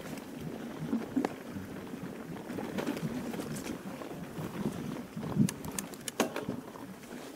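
Mountain bike riding over rough grass: an uneven rumble from the tyres and bike over the bumpy ground, with scattered knocks and a quick run of sharp clicks and rattles a little past the middle.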